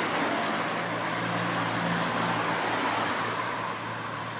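Motor vehicle engine running with road noise, a low steady hum that comes in about a second in and eases off near the end.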